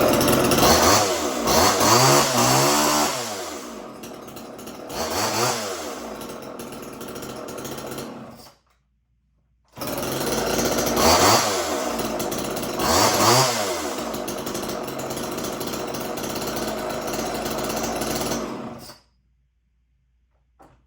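Small Homelite two-stroke chainsaw with a 12-inch bar running, its throttle blipped repeatedly so that it revs up and drops back to idle. The sound cuts out for about a second around the middle, then the saw runs again with two more revs and stops near the end.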